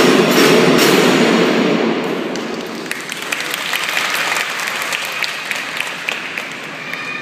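A children's drum band of snare drums and marching glockenspiels finishes playing in the first two seconds, the sound dying away, followed by scattered clapping.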